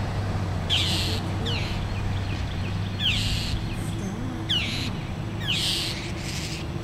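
Birds giving harsh, rasping calls: several short calls with a falling note, repeating roughly once a second or so, the alarm and scolding of birds mobbing a perched hawk.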